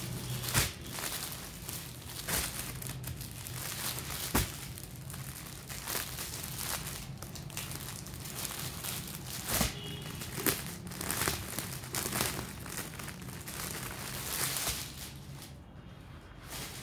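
Clear plastic clothing packets crinkling and rustling as they are handled, with several sharp crackles. The rustling dies down near the end, leaving a low steady hum underneath.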